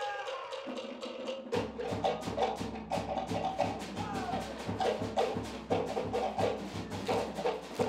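Cook Islands drum ensemble playing an ura pa'u rhythm: wooden slit drums beat a fast, dense pattern of knocks, and a big skin bass drum (pa'u) joins about a second and a half in.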